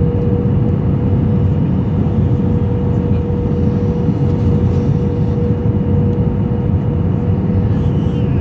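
Airliner cabin noise heard from a window seat on the landing approach: a steady, even rushing roar of the jet engines and airflow, with a steady droning tone running through it.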